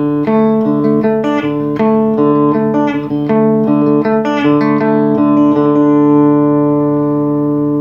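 Electric Telecaster guitar played through a tube amp with a dry signal, no effects, in a country lead line: a run of picked notes with a few string bends over a held note that keeps ringing. The last notes ring out near the end.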